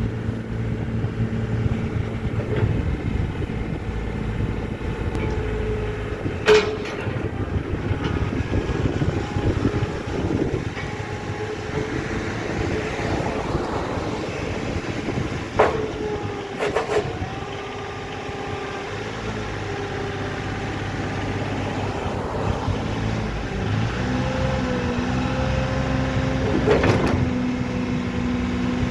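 Komatsu PC30 mini excavator's diesel engine running under hydraulic load as the boom, bucket and slew are worked, with a few short sharp knocks. Its note rises and grows louder toward the end.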